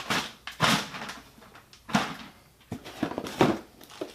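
Auto parts and their packaging being handled and unpacked: a series of short rustles and knocks, several in a row.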